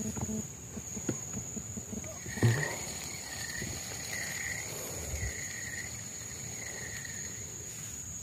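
Steady high-pitched insect drone from the riverside swamp. A few seconds in, some animal gives about five short, evenly spaced calls, and there is a single dull thump near their start.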